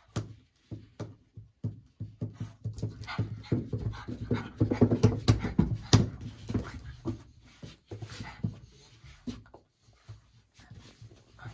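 French Bulldog puppy making quick, breathy grunts and huffs as it plays at a person's fingers, in irregular rapid spurts that are busiest in the middle and die down near the end.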